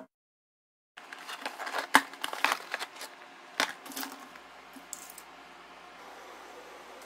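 Hands handling dry, brittle-shelled sweet tamarind pods on a tabletop, making a string of light clicks and scratches. These stop about four seconds in, leaving faint room tone with a low hum.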